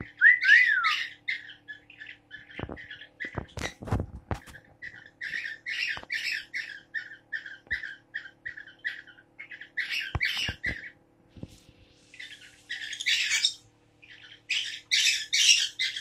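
Small pet parrot chattering in quick runs of short, high chirps, with pauses between the runs and a rising-and-falling whistle near the start. A few sharp taps sound around four seconds in and again near ten seconds.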